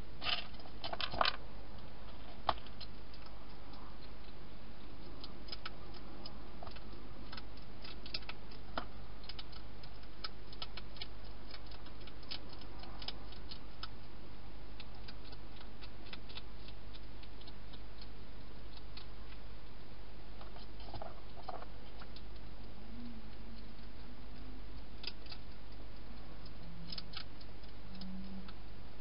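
A wild hedgehog eating inside a clear plastic feeding box: irregular small clicks and crunches of chewing and of movement against the plastic. A few louder clicks come together about a second in, and another bunch comes near the end, over a steady low hum.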